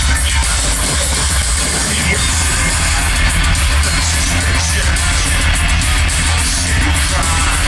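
Loud live electro-industrial music, with heavy bass and shouted vocals over the band.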